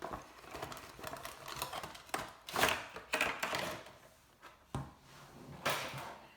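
Cardboard box and plastic packaging of a Funko Pop vinyl figure being handled and opened to get the figure out: irregular rustling, scraping and sharp clicks.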